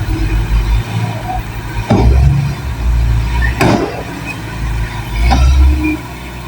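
Working machinery rumbling low and unevenly, swelling and fading, with three sharp knocks about a second and a half apart.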